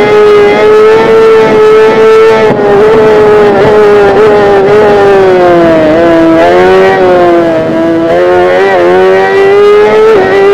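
Kawasaki ZX-10R's inline-four engine running hard at high revs, a loud steady high-pitched note that sags in the middle and climbs back up toward the end.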